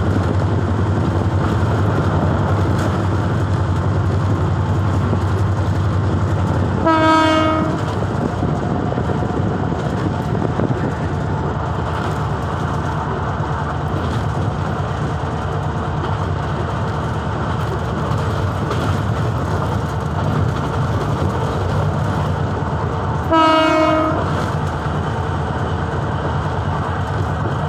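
Diesel locomotive running at speed, heard from its cab: a steady low engine drone over wheels running on the rails. The horn sounds two short blasts, one about seven seconds in and another about sixteen seconds later.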